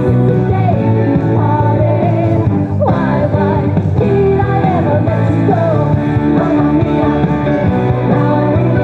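A song with a sung melody over a steady backing track, with a brief break about three seconds in.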